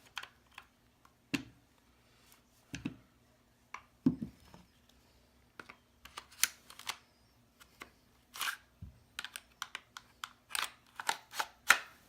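GSG-5 .22 rimfire rifle being reassembled by hand: irregular sharp clicks and clacks of its parts being handled and fitted together, with short pauses between.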